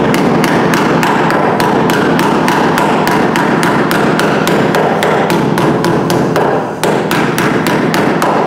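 Metal body hammer striking a sheet-steel patch panel in quick, steady light blows, about four or five a second, the panel ringing between strikes, with a brief break a little before the end. This is the patch being stretched into a bowl shape to match the curve of the rusted rear-window frame corner.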